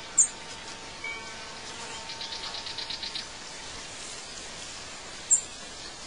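Outdoor birdsong ambience over a steady hiss. Two short, high chirps about five seconds apart are the loudest sounds. Between them come a brief lower chirp and a quick trill of about ten notes.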